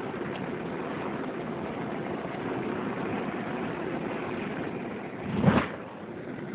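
Gas water heater burner running with a steady rushing noise, and one sudden loud whoosh about five and a half seconds in.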